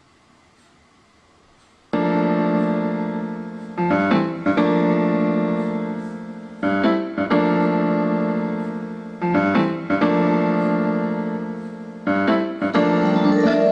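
Piano music: slow sustained chords, a new chord struck every two to three seconds, starting after about two seconds of near silence.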